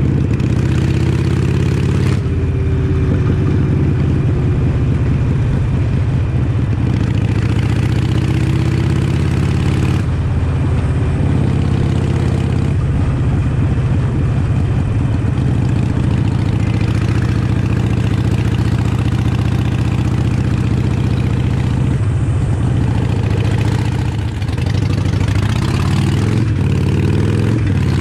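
Harley-Davidson Iron 883's air-cooled 883 cc V-twin running through a full Vance & Hines Shortshots exhaust while riding, its note rising and falling with the throttle, with a brief drop in loudness about 24 seconds in.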